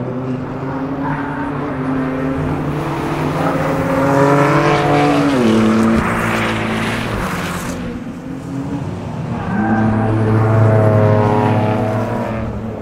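Track cars' engines passing through a circuit corner. A yellow Porsche 718 Cayman's engine climbs in pitch as it comes on, then drops sharply as it goes by about five seconds in. A second car's engine swells up loudly near ten seconds in.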